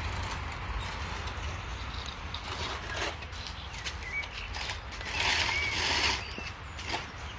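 Steady patter of rain falling on a garden, with a low rumble of wind or handling on the phone's microphone and scattered light clicks; the noise grows louder for about a second, some five seconds in.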